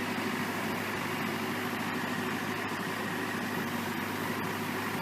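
Terex TLB840 loader backhoe's diesel engine running at a steady speed, a constant low hum.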